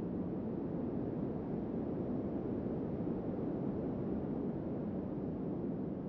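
Wind blowing steadily: a low, even rush with no gusts or whistling.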